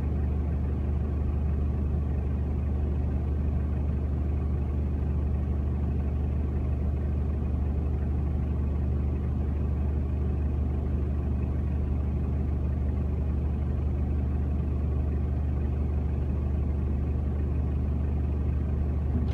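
Car engine idling steadily while the car stands still, a low, even hum heard from inside the cabin.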